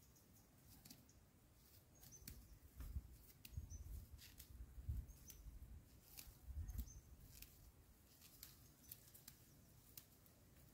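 Near silence, with faint scattered clicks and a faint, short, high chirp that recurs every second or two; some low rumble comes in the middle.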